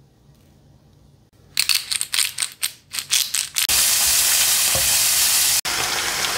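Food frying in a hot pan: a few short crackling spurts, then a steady loud sizzle from a little past halfway, broken for an instant near the end.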